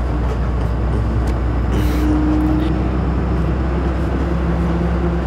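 Bus engine and road noise heard from inside the passenger cabin of a moving bus: a steady low drone with no sudden events.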